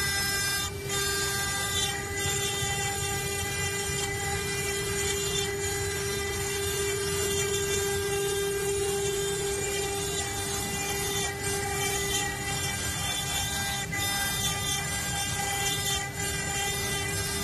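CNC stone-carving router's spindle running steadily with a held whine, its water-cooled bit grinding into a stone slab as it carves a relief.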